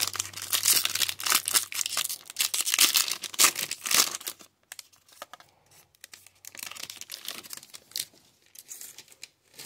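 Foil trading-card pack (2022 Topps Stadium Club Chrome baseball) torn open along its seam and crinkled for about four and a half seconds, then quieter rustling as the cards are slid out of the wrapper.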